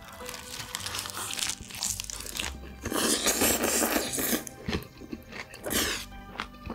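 Close-miked eating: crunchy chewing and biting, loudest in a long crunch about three seconds in and a shorter one near six seconds. Background music plays underneath.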